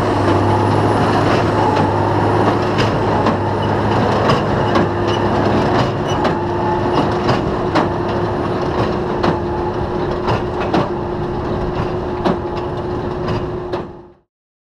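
Tractor and New Holland BB9070 large square baler working together: a steady mechanical drone with a low hum and a thin whine, crossed by regular knocks about twice a second from the baler's mechanism. The sound fades out near the end.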